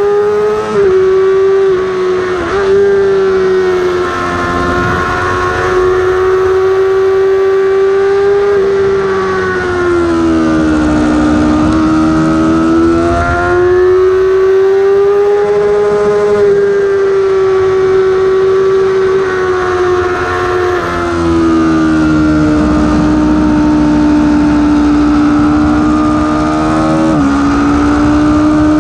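Yamaha R6's inline-four engine held at high revs on track, heard from a camera on the bike with wind rush underneath. The revs sag and climb back twice, about ten and twenty-one seconds in, and there are quick gearshift dips, one of them near the end as it goes from third to fourth gear.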